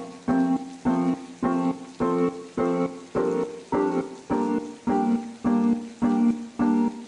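Background piano music: chords struck in an even rhythm, a little under two a second.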